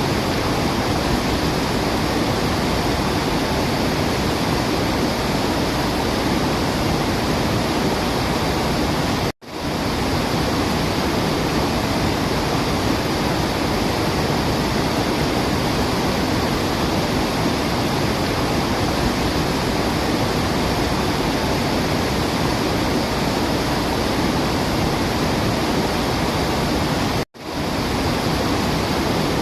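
Waterfall rushing steadily, cutting out to silence for an instant twice, about nine seconds in and near the end.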